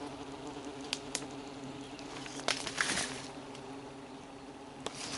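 Steady buzzing of many Asian hornets swarming out of a disturbed nest, with a few short clicks about one and two and a half seconds in.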